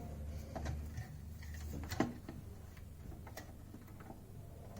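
Light, scattered clicks and taps of small parts being handled as a loose nut is worked into line with a screw inside a coffee machine's plastic housing; the sharpest clicks come about two seconds in and again a little after three seconds.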